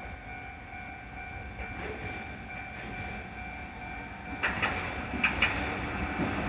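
Japanese railway level-crossing alarm ringing its repeated "kan-kan" tone. About four and a half seconds in, a train arrives and grows louder, its wheels clacking over the rail joints.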